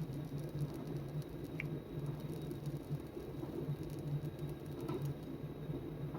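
Sandpaper rubbing back and forth on a steel knife blade in hand sanding, over a steady low hum.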